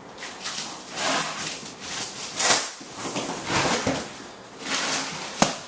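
Repeated rustling and scraping as packaged items are pulled out of a large cardboard box, with a sharp knock about five seconds in.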